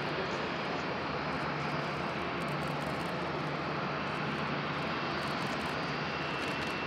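Boeing 787 Dreamliner's Rolls-Royce Trent 1000 turbofan engines running at low taxi thrust as the airliner taxis, a steady engine noise.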